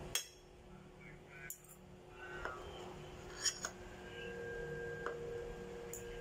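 A metal fork clinking against dishes, a few sharp separate clinks, the loudest right at the start. A faint steady tone comes in about four seconds in.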